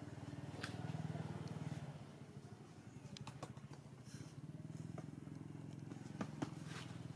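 A steady low motor hum, with a few short sharp clicks, the loudest two close together near the end.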